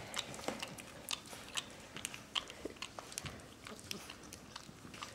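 4.5-week-old Great Dane puppies play-fighting and mouthing each other: irregular small clicks, snaps and scuffles of teeth and bodies.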